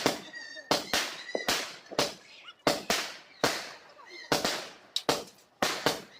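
Diwali firecrackers going off one after another: about a dozen sharp bangs at uneven intervals, often half a second apart, each with a short echoing tail.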